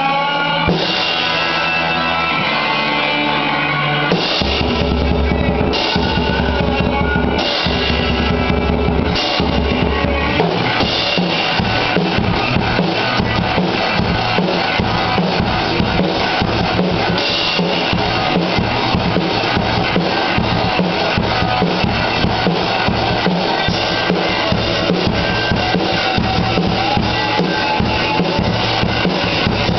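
Acoustic drum kit played along to a recorded rock track: snare, toms, bass drum and cymbals over sustained band notes. The drumming turns into a steady, dense beat about ten seconds in.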